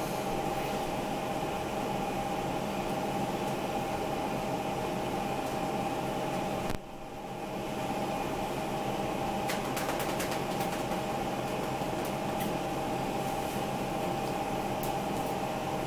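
Steady machine hum with a faint constant whine, like a kitchen appliance or fan running. The level drops briefly about seven seconds in, and a few light clicks come later on.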